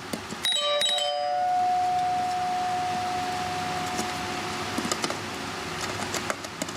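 Friedland ding-dong door chime struck once about half a second in: a brief first note, then a clear bell-like note that rings on for about five seconds and fades out.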